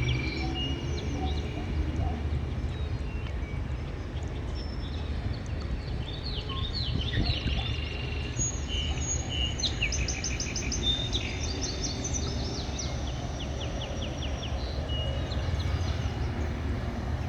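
Several small birds chirping and singing, with short whistled notes and quick trills overlapping throughout, over a steady low rumble.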